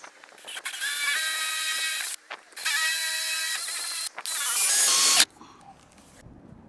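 Cordless drill boring through a fibreglass boat deck, run in three bursts of motor whine, the last one shorter, before it stops about five seconds in.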